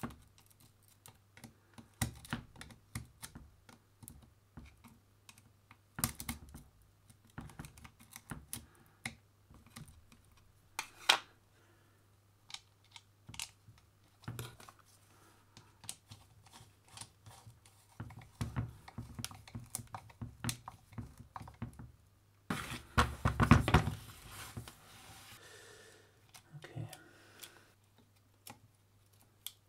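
Scattered small clicks and taps of needle-nose pliers and a screwdriver working new carbon brushes into the brush holders of a rotary hammer's plastic motor housing, with a longer scraping rustle about 23 seconds in. A faint steady low hum runs underneath.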